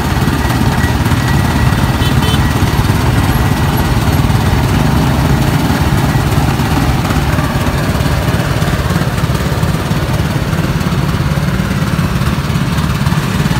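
Small engine driving a sugarcane juice press, running steadily with a continuous low drone.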